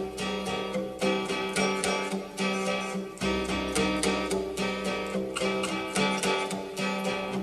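Slowed-down hip-hop instrumental intro led by a plucked guitar melody over held notes, with a deep bass that drops out briefly and comes back in about three seconds in.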